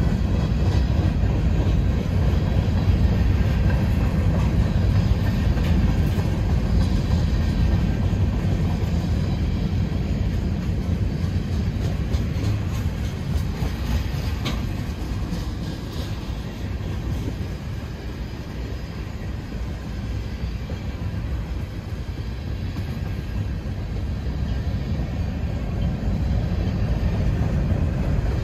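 Freight train cars rolling past on the rails: a continuous low rumble of wheels and cars that eases off a little in the middle and builds again near the end.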